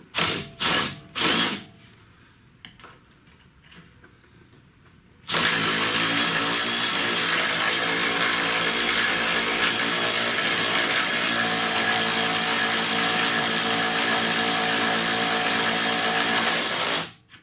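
A power tool blipped briefly about four times, then after a pause run steadily at one speed for about twelve seconds, with a strong hiss over its hum, stopping sharply near the end.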